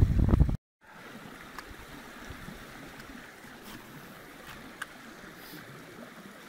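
Wind buffeting the microphone, which stops abruptly about half a second in. After that comes a faint steady hiss of running water with a few light ticks.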